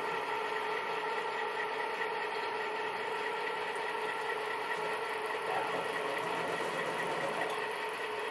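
HO-scale model locomotive's sound decoder playing a diesel engine running steadily, a constant drone with a few held tones coming through the locomotive's small onboard speaker.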